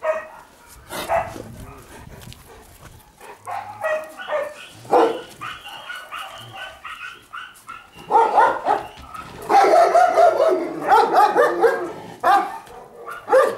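Caucasian Shepherd dogs barking and yelping in many short, high calls, busiest and loudest in the second half.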